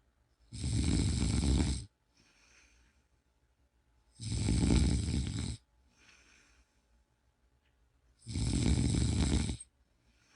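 A person snoring: three loud snores about four seconds apart, each lasting about a second and a half, with a much fainter breath between them.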